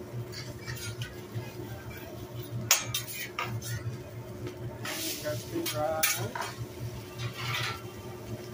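Metal spatula clinking and scraping on a steel teppanyaki griddle as eggs and rice are worked, with a sharp clack a little under three seconds in and short scraping hisses about five and seven and a half seconds in. A low steady hum underlies it.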